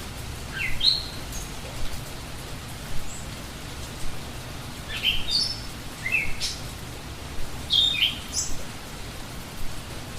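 Steady rain falling, with a bird calling in short rising chirps in four brief bursts: about a second in, at around five and six seconds, and near eight seconds.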